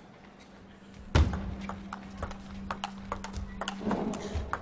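Table tennis rally: the plastic ball clicking off the players' rubber-faced bats and the table in a quick, even rhythm of about three hits a second. It follows a loud low thump about a second in, under a steady low hum.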